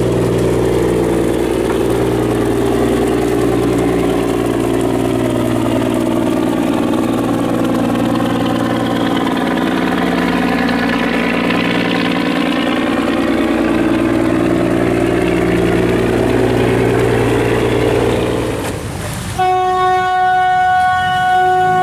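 Engine of a steel river barge running steadily as it passes close by. About 19 seconds in, a boat horn sounds one long, steady blast.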